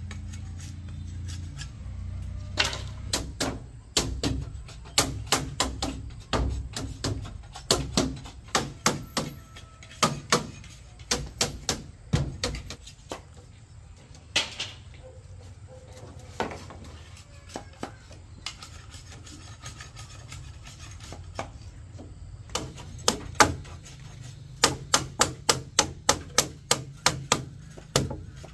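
Repeated sharp blows on bamboo, in quick runs of several strikes about three a second with short pauses between runs. The loudest run comes near the end.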